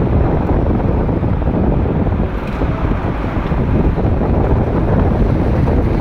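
Wind buffeting the microphone of a moving vehicle, a loud steady rumbling rush with road and traffic noise underneath.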